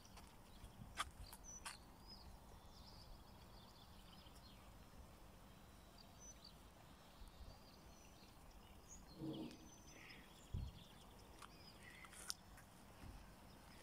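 Near silence with faint scattered bird chirps, a few sharp clicks, and a dull thump about ten and a half seconds in.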